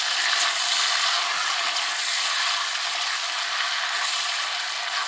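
Chicken drumsticks sizzling steadily in hot oil in a small kazan as they are stirred.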